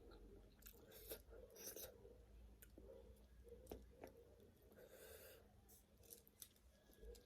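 Faint, close-miked chewing of noodles, with soft irregular mouth clicks and smacks.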